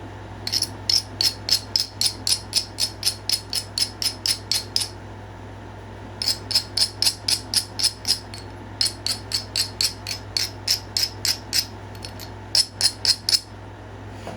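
Quick, even scraping strokes of stone on stone, about four a second, in three runs with short pauses: a stone point being worked by hand during flintknapping, most likely its edge being abraded.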